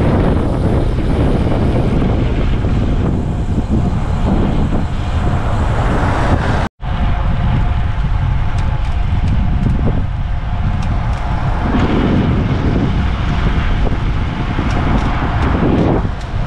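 Wind buffeting the microphone of a camera carried on a moving bicycle, a dense steady rumble with road noise underneath. The sound drops out completely for a split second about seven seconds in, then the same rumble carries on.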